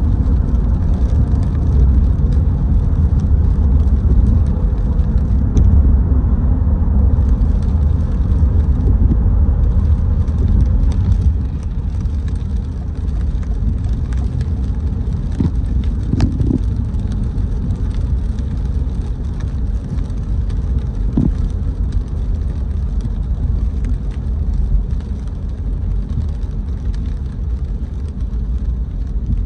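Car driving on rain-wet city streets: a steady low rumble of engine and tyres that drops slightly in level about a third of the way in, with a few faint clicks.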